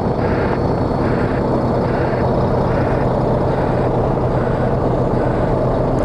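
Brigade white-noise reversing alarm giving a pulsing hiss that grows fainter as the listening point moves from behind the truck to its side, showing its directional sound. Under it, the Volvo truck's diesel engine idles steadily in reverse.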